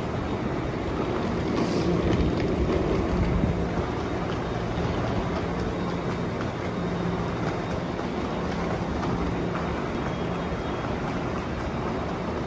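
Steady rumbling ambience of a light-metro station, with a faint low hum coming and going, from a Canada Line train and the station around it.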